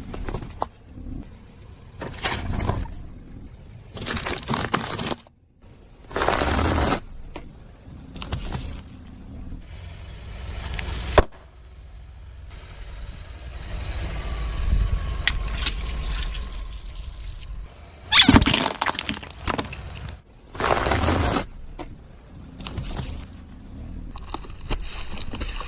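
Car tyre rolling over and crushing crunchy objects: a series of separate crackling crunches, one sharp snap about halfway through and the loudest crunch about three quarters of the way in, over the low rumble of the car.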